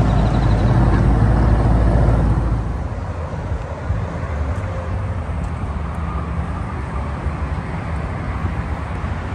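Car running with a steady low engine and road rumble; the rumble drops in level about two and a half seconds in.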